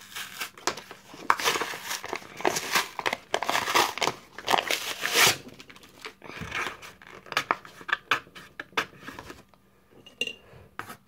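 Cardboard packaging of a Pokémon card box being torn and crinkled by hand: dense ripping and rustling for about the first five seconds, then scattered crackles and taps that die away near the end.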